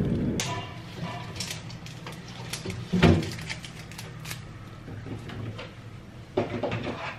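Kitchen handling sounds: a few light clicks and knocks of things being handled and set down, with one louder thump about three seconds in, over a faint low steady hum.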